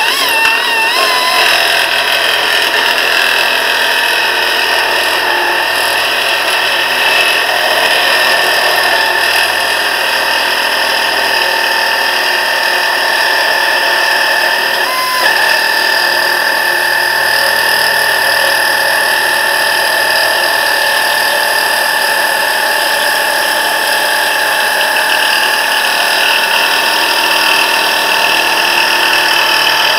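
Harbor Freight pneumatic air nibbler running steadily as it cuts sheet metal, a loud continuous whine with a brief dip in pitch about halfway through. Its dies are well worn.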